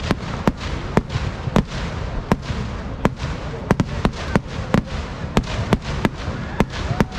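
Kerala temple-festival fireworks (vedikettu) going off in a rapid, irregular string of sharp bangs, about two or three a second, over a steady din.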